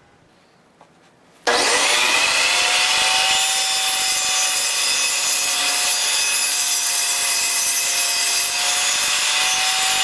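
Jobsite table saw switched on about a second and a half in: the motor spins up with a quickly rising whine, then runs steadily and loudly as the blade cuts its kerf into the plywood crosscut sled.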